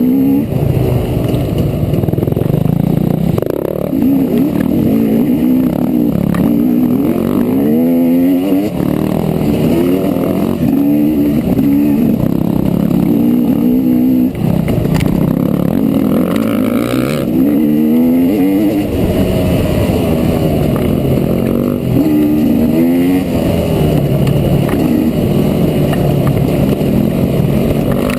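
Dirt bike engine on a trail ride, revving up and dropping back over and over as the rider works the throttle and gears.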